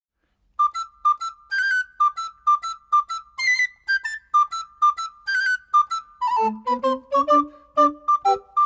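Background music: a bright tune of short, detached high notes, with a lower moving line joining about six seconds in.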